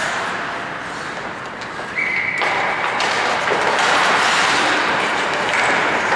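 Ice hockey play on an indoor rink: skates scraping the ice, with stick and puck knocks and thuds. The scraping gets louder about two and a half seconds in.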